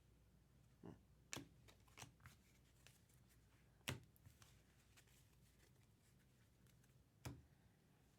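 Trading cards and packs being handled: scattered light clicks and taps of card stock, the sharpest about four seconds in and another near the end.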